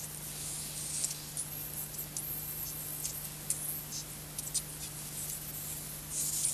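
Scrambled audio of an encrypted pay-TV broadcast recorded on VHS: a steady low hum under high hiss with irregular crackles and clicks.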